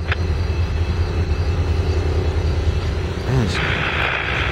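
Norfolk Southern diesel locomotives idling with a steady low rumble. Near the end a steady hiss comes in over it.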